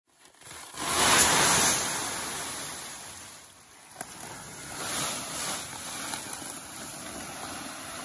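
Treated barley seed pouring from a big bag into a seed drill's hopper: a rushing hiss that swells about a second in, eases, and swells again around five seconds. A single sharp click comes at four seconds.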